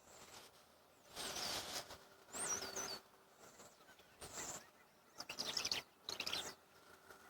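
Swallows twittering: about five short bursts of high chirps, one a quick up-and-down warble and another a rapid chatter.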